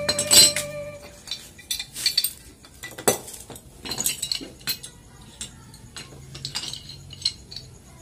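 Irregular metal clinks and knocks as red pipe wrenches are set on and handled against a steel pipe assembly of a deep-well check valve and injector to tighten its threaded fittings. The loudest knock comes about three seconds in.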